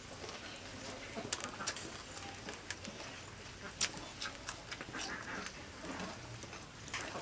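Close-up chewing of boiled cow offal: wet mouth smacks and crunchy clicks at irregular intervals.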